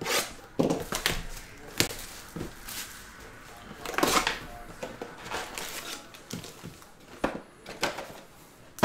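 A cardboard trading-card hobby box being opened by hand, and its foil-wrapped card packs pulled out and set down on a mat. It comes as a string of short scrapes, taps and rustles, with a longer rustle about four seconds in.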